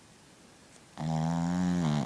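Sleeping puppy snoring: one loud drawn-out snore about a second long, starting halfway through, with a steady droning pitch that rises slightly and falls.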